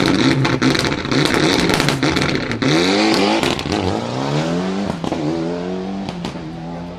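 Mitsubishi Lancer Evolution rally car's turbocharged four-cylinder held at high revs with a rapid run of sharp cracks and pops, then pulling away hard: the engine note climbs, drops at a gear change about four seconds in and again about a second later, and fades as the car goes off.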